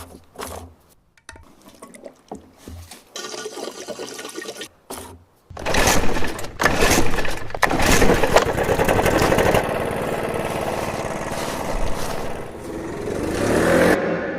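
A Stihl BR 700 backpack leaf blower's two-stroke engine starts about five seconds in after some quiet clicks. It runs with uneven surges, then settles into a steady rush of engine and blown air that swells near the end.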